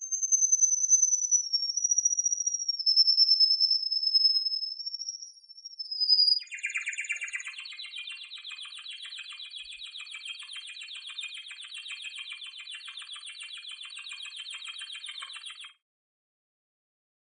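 Domestic canary singing. It holds one long, thin whistle for about six seconds, drifting slowly down in pitch, then breaks into a fast buzzing trill that runs for about nine seconds and stops abruptly.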